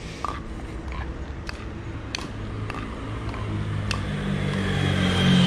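A motor vehicle approaching and passing close by, its low engine hum growing louder toward the end with a faint falling whine, over scattered light clicks.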